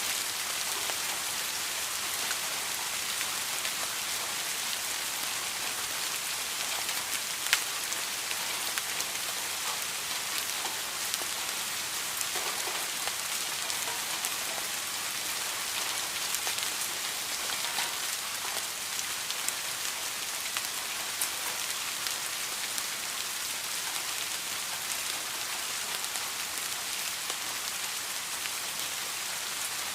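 Steady rain falling on a surface, an even hiss with scattered individual drops ticking through it, one drop louder about seven and a half seconds in.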